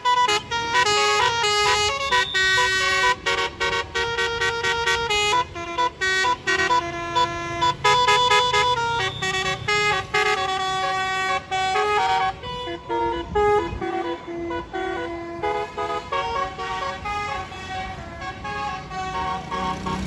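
A tour bus's 'basuri' musical air horn playing a quick tune of short notes that change pitch step by step, one after another throughout.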